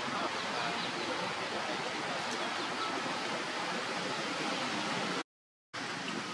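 Steady rain falling on forest foliage, an even hiss. It drops out to silence for about half a second near the end.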